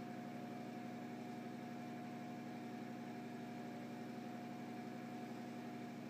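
Steady mechanical hum with a few held tones, unchanging: room tone from a running machine.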